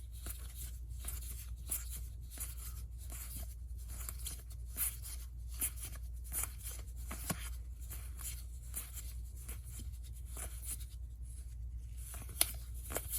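Magic: The Gathering cards being handled and flipped through by hand: irregular soft clicks and rustles of cards sliding over one another, with one sharper click near the end, over a steady low hum.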